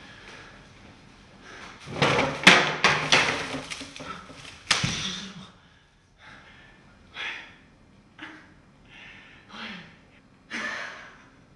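A few seconds of clattering with sharp knocks, then a man breathing hard in short gasps, about one a second.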